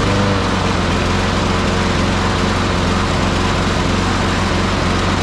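Briggs & Stratton 650-series single-cylinder four-stroke push-mower engine running steadily, having started on the first pull of the starter cord.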